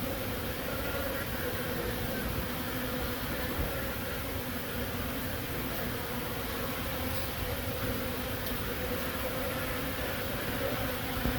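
Honey bees buzzing, a steady unbroken hum.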